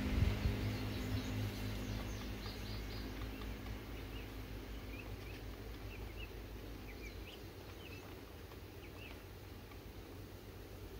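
A passing vehicle's engine fading away over the first couple of seconds, then scattered short bird chirps over faint outdoor background noise.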